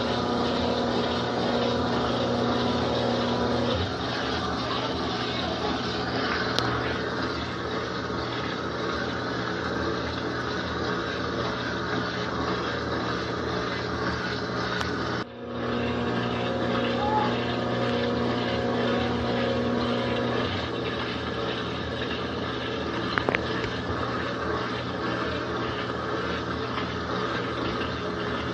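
An electric laundry machine running steadily, with a constant motor hum and whirring. A brief break about halfway through is followed by the same running sound.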